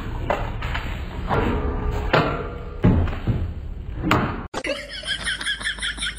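Metal wire frame knocking and clattering against the ground and fence as a dog drags it, about six knocks over four seconds. After a cut, a quick run of high chirps.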